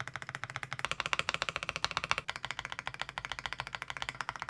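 Stabilized keys (Shift, Enter, Backspace) of an AULA F87 Pro mechanical keyboard pressed over and over in quick succession, a rapid run of crisp clacks, as a stabilizer check. The stabilizers sound clean and clacky.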